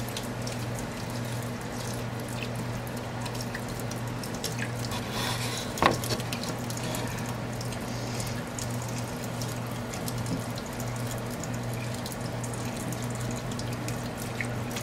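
Kitchen faucet running steadily into a stainless steel sink as a puppy is rinsed under the stream. About six seconds in there is a single sudden sharp sound, the loudest moment.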